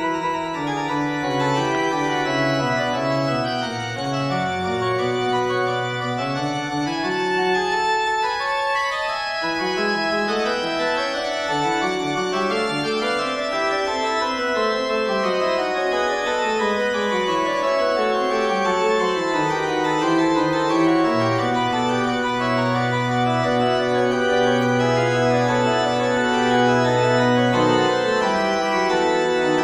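Organ music: sustained chords with slowly moving lines, and a deep bass note held for several seconds in the second half.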